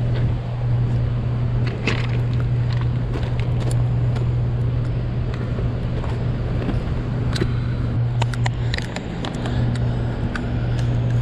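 A steady low hum, with scattered clicks and crunches of footsteps on loose rocks.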